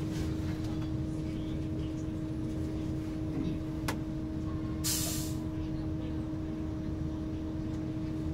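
Golden Dragon XML6105JHEVG5C6 plug-in hybrid city bus heard from inside the cabin: a steady hum over low rumble, with a single click about four seconds in and a short hiss of air about a second later, typical of the pneumatic brakes.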